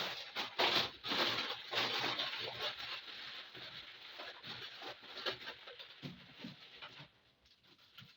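Rustling and light clatter of household items and packaging being handled and put away, a dense rustle with scattered small knocks that dies down near the end.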